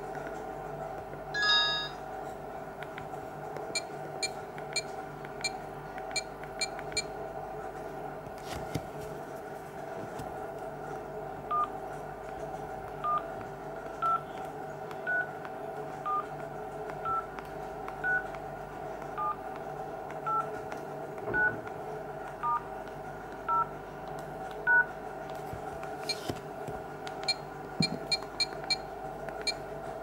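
Alcatel 2053D flip phone's keypad dial tones as digits are pressed one at a time: about a dozen short beeps roughly a second apart. Quick runs of short ticks from key presses come before and after them.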